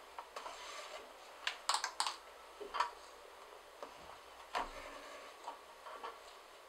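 Leather being hand-stitched: irregular sharp clicks and taps as a needle is pushed through punched stitching holes and the thread is drawn through, with soft rustling of thread and leather between.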